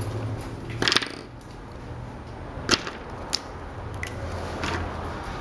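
Marker caps being pulled off and pushed back on: a few short, sharp clicks, the loudest a double click about a second in, over a steady low room hum.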